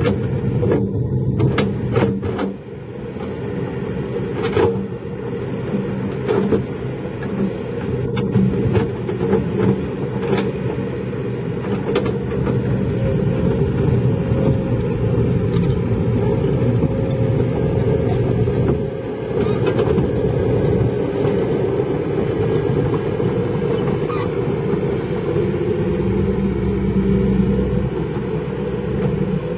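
Kobelco SK200 hydraulic excavator's diesel engine running steadily under working load. Sharp knocks and clanks from the machine's bucket and tracks come through in roughly the first twelve seconds.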